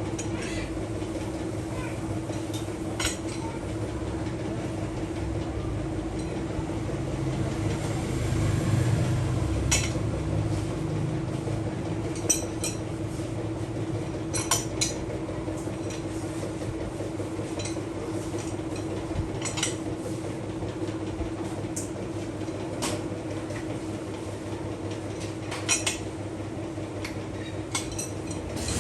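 A machine's steady electric-motor hum with low rumble, over which metal parts and tools clink sharply a dozen or so times.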